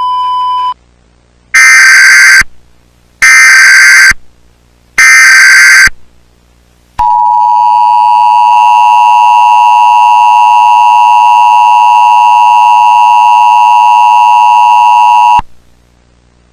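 Emergency Alert System tones. A short steady beep is followed by three SAME header data bursts of about a second each, heard as a screeching warble. About a second later comes the two-tone attention signal, held steady for about eight seconds and then cut off abruptly, which announces that an emergency message follows.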